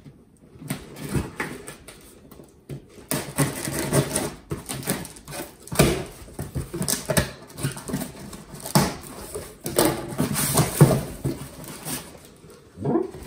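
Cardboard boxes rubbing and scraping against each other as an inner box is worked loose and pulled up out of a shipping carton: a run of irregular rustles, scrapes and short squeaks, loudest about six and eleven seconds in.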